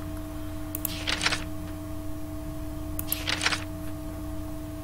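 Two short runs of sharp clicks from a computer being operated, about a second in and again about three seconds in, over a steady electrical hum.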